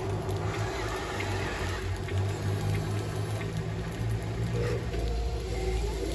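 Remote-control toy wheel loader's small electric drive motor and gears whirring steadily as it drives over loose soil.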